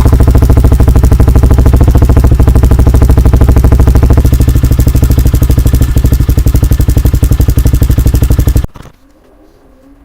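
Pitster Pro XTR 250 pit bike's single-cylinder engine running at a steady, evenly pulsing idle, freshly started on new oil. It is shut off and cuts out suddenly near the end.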